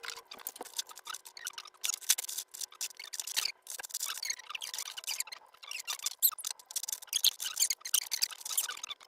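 Plastic Lego bricks clicking and rattling as hands rummage through and handle them: a dense, irregular run of small clicks and rustles.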